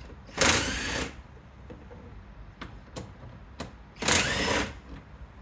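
Cordless impact tool with a 10 mm socket running in two short bursts about three and a half seconds apart, backing out the two 10 mm bolts that hold a car's interior door panel, with a few small clicks in between.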